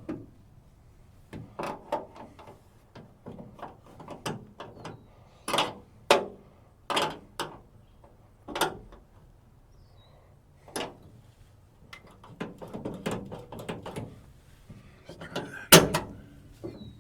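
Irregular sharp metal clicks and clunks from a 1963 Chevrolet C10's door latch mechanism being worked and adjusted, with a loud knock near the end.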